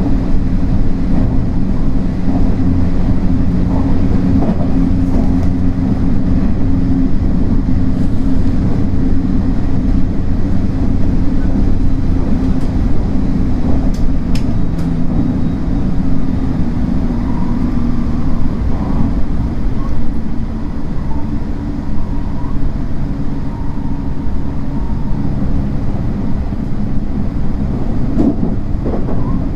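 JR West 225-100 series electric train running along the line, a steady low rumble of wheels on rail and running gear.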